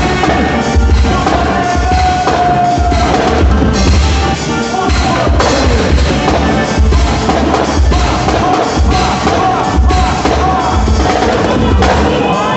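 Loud dance music with a steady, regular drum beat under a sustained melody: quadrilha junina music.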